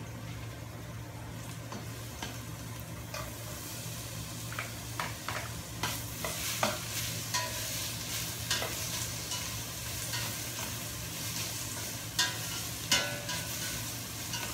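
Onion, garlic and ginger sizzling in hot oil in a stainless steel pot while being stirred, with sharp scrapes and clicks of the ladle against the pot. The sizzle grows stronger about three seconds in, over a steady low hum.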